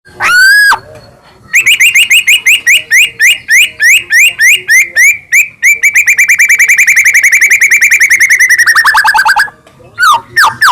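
White-rumped shama singing loudly: one long rising whistle, then a run of repeated upward-sweeping notes that speeds up into a fast trill, sinking in pitch before it breaks off. After a short pause, a few quick sweeping notes follow near the end.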